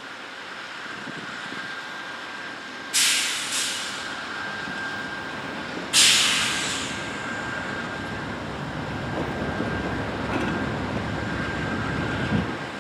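Two Amtrak GE Genesis diesel locomotives idling at a station stop, with sharp hisses of compressed air being released: two short ones about three seconds in and a louder one about six seconds in that fades over about a second.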